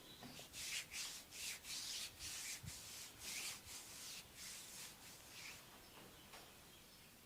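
Hands rubbing briskly over skin in quick massage strokes, a hissy swish about two or three times a second, that stops about five and a half seconds in.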